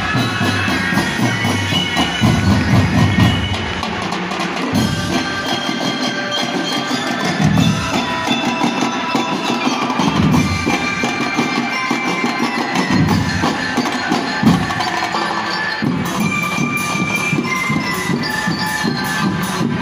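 A drum and lyre band playing: a melody on mallet-struck keyboard instruments over drums, with bass drum beats coming through at intervals.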